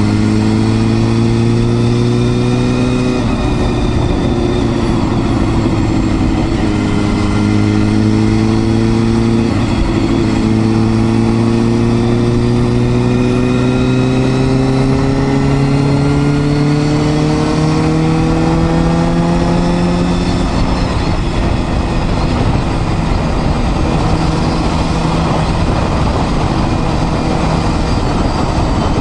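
Honda Hornet 250's four-cylinder engine pulling under acceleration while riding, its pitch climbing in each gear and dropping at two upshifts early on, then a long steady rise. About two-thirds of the way in the engine note levels off and turns steady as the bike cruises.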